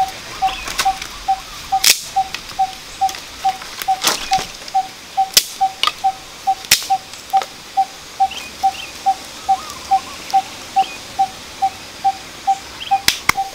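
A single short, clear note repeated very evenly, a little over twice a second, from a calling forest animal. Sharp cracks and snaps come every second or two, from the small stick fire being tended.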